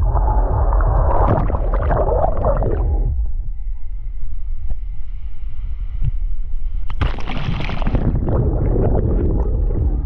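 Sea surf heard with the microphone underwater: a muffled low rumble and gurgling churn. About seven seconds in, the microphone comes up into the white water of a breaking wave and a loud hissing wash sets in.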